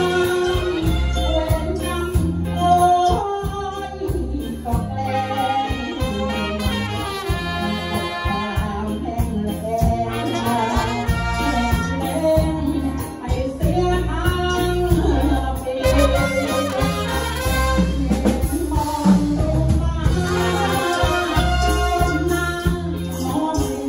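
Live Thai luk thung band playing with a steady beat: saxophones and trumpets, electric bass and drum kit, with a male singer over them.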